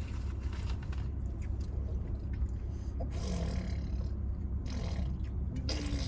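A person chewing food, with small scattered mouth clicks, over a steady low rumble; a short low hum-like sound about three seconds in.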